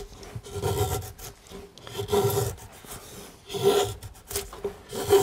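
Drawknife shaving a wooden ox yoke by hand: several rasping scrapes of the blade peeling off thin shavings, about one every second and a half.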